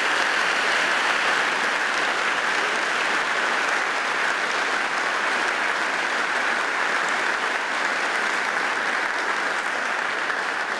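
Audience applauding: a long, steady round of clapping.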